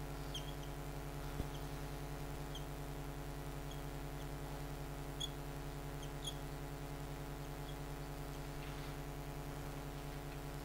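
Marker squeaking on a whiteboard in short, faint, high chirps as words are written, over a steady electrical hum.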